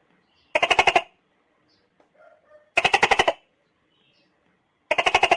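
Baby tokay gecko making three short rattling bursts about two seconds apart, each a fast run of clicks lasting about half a second.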